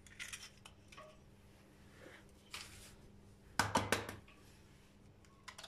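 Eggs being cracked by hand into a ceramic plate: soft shell crackles and light taps on the crockery, with a cluster of louder sharp knocks about three and a half seconds in.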